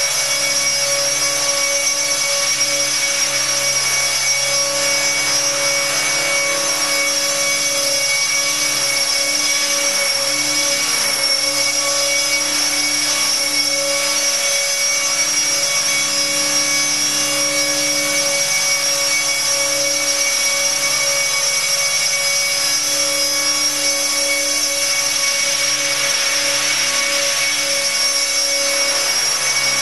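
Align T-Rex 600 electric RC helicopter running at a steady head speed as it lifts off and hovers: a constant high whine from the electric motor and gearing over the whoosh of the rotor blades.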